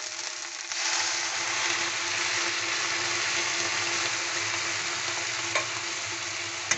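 Cut okra sizzling in a little hot oil in a wok. About a second in, water is poured in and the sizzle jumps suddenly louder as it hits the hot pan, then carries on as a loud bubbling sizzle. Two sharp clicks of the metal spatula against the wok come near the end.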